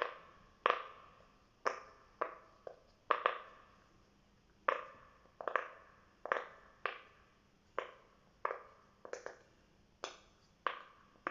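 Bubbles of a silicone pop-it fidget toy being pushed in one at a time, each giving a short, sharp pop. About eighteen pops come at an uneven pace of roughly two a second.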